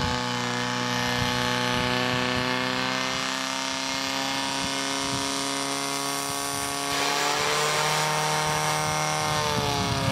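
A portable fire pump's engine running hard at high revs with a steady pitch. The pitch rises a little about seven seconds in, and the engine cuts off abruptly at the end.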